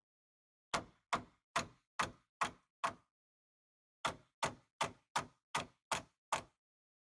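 Hammer tapping a wooden block held against the steel body of a 1977 VW Type 2 bus, two runs of steady sharp knocks, about two or three a second, with a brief pause between, to drive a stuck sliding door loose.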